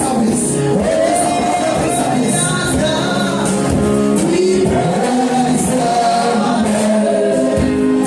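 Gospel worship music with singing voices over instrumental backing, steady and loud.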